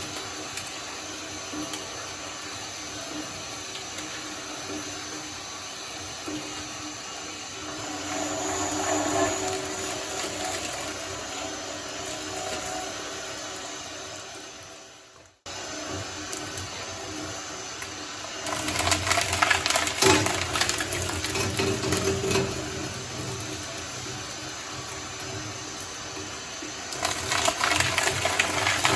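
Shredder motor running steadily while slime is ground through it, with louder wet squelching and grinding several times. The sound fades out about halfway and cuts back in.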